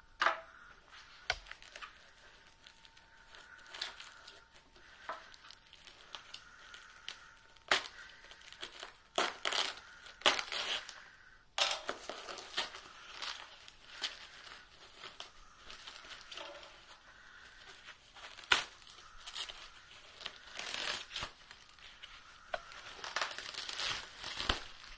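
Plastic foam packaging wrap crinkled and pulled open by hand: irregular rustling and crackling, with several sharp louder crackles.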